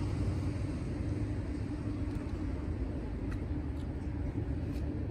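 Steady low rumble of motor vehicles with a constant low hum running underneath, like an idling engine.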